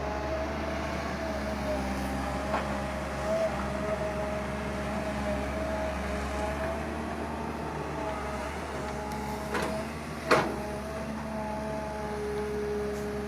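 Excavator's diesel engine running steadily while digging soil, with two sharp clanks close together about ten seconds in, the second louder.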